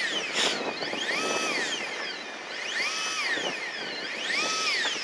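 Shimano Beast Master electric reel motor whining as it winds in a hooked fish on a bent rod. Its pitch rises, holds and falls three times, about once every second and a half.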